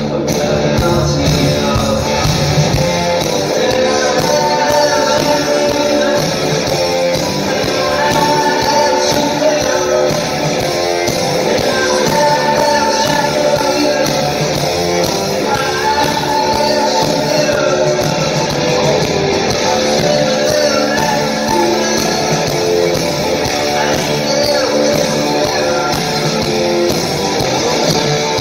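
Live rock band playing loud, with electric guitar and a sung vocal line, heard from the crowd in a concert hall.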